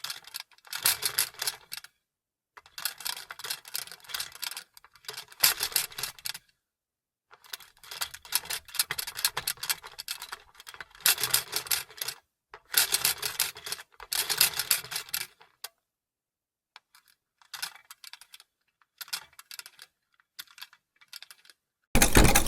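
Vintage sewing machine stitching in short runs of rapid clicking, about seven runs of one to three seconds with brief stops between, then a few faint clicks and a louder run starting near the end.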